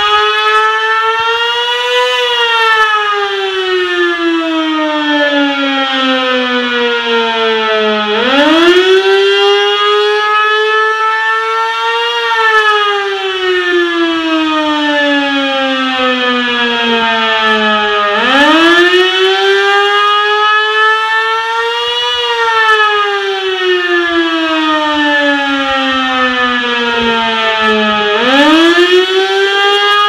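Darley 3V8 mechanical siren wailing in repeated cycles about ten seconds long: the pitch rises quickly, peaks, then slowly falls away before climbing again, with fresh rises about 8, 18 and 28 seconds in.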